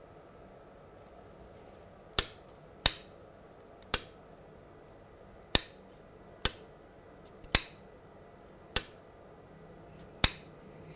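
About eight sharp, short plastic clicks at irregular intervals of roughly a second as a finger works the blades of a Peco medium radius model railway point back and forth.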